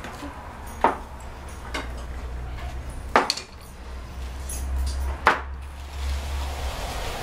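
A spatula and frying pan knocking: three sharp clacks and a fainter one, a second or two apart, as a crepe is loosened and turned in the pan. A low steady hum runs underneath.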